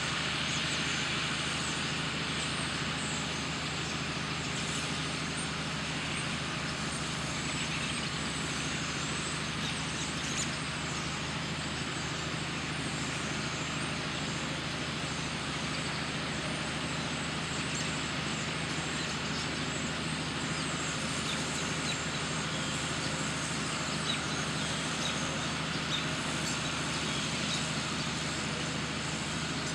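A steady low engine-like hum with an even background hiss, unchanging throughout.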